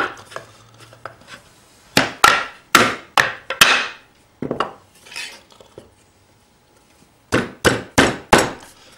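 Doweled wooden boards knocked and clattered together by hand as a dowel joint is fitted and pulled apart: a run of sharp wooden knocks about two to four seconds in, a few softer ones, then another quick run of about five knocks near the end.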